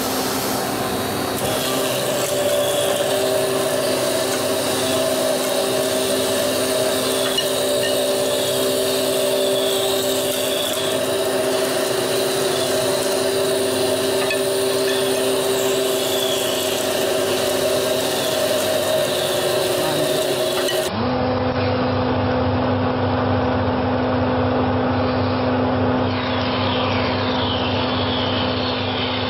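Wooden round-stick milling machine running, its motor and spinning cutter head humming steadily while square wooden stock is fed through and rasped into round broom-handle sticks. About two-thirds of the way in, a second machine of the same kind takes over with a lower, pulsing hum.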